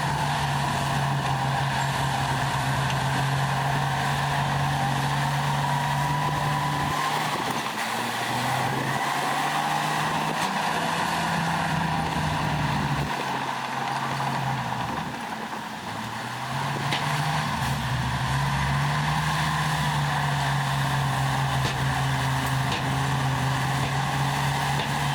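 Diesel engine of heavy earthmoving machinery working, its revs easing off and picking up again several times, with a brief drop in revs a little past the middle. A fainter high whine that slides in pitch runs above the engine.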